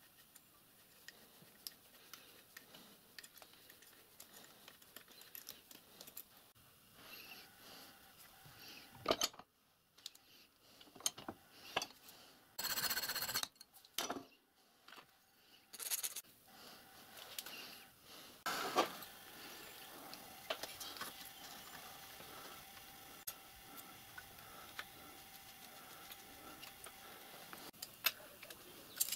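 Light metallic clicks and clinks of small metal parts being handled and fitted, with a short loud rasping burst near the middle while 8BA brass screws are cut to length. A faint steady hum runs through the second half.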